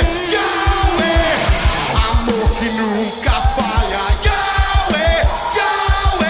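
Worship song playing: a band with a steady drum beat under a melodic lead line.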